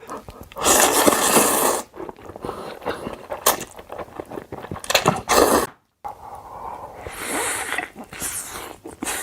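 Close-miked mukbang eating sounds: irregular crunching, chewing and mouth noises, in short bursts with sharp clicks. The sound cuts out abruptly twice, at clip cuts.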